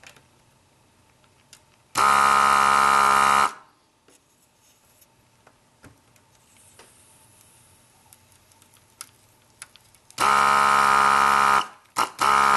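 Desoldering gun's built-in vacuum pump buzzing in three bursts, sucking solder from a calculator key module's joints. The first two bursts last about a second and a half each, a couple of seconds in and again near the end; the third, shorter one comes just after.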